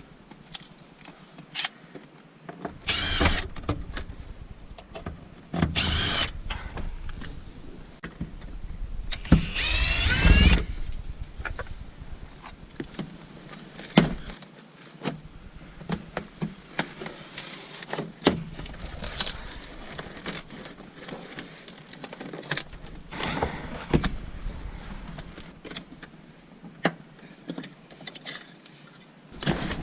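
A small electric motor whirring in several short bursts, its pitch sliding as it runs, among scattered clicks and knocks of parts being handled.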